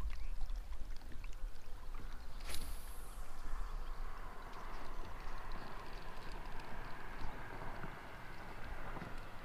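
Casting and retrieving with a fishing rod from a kayak: a sharp swish about two and a half seconds in as the line flies out, then a steady whir as the reel is cranked, over wind rumbling on the microphone.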